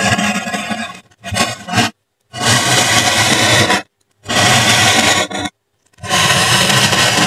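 A drawing tool's tip scraping along white polystyrene foam in about five separate strokes, most lasting a second or more, with short silent gaps between them.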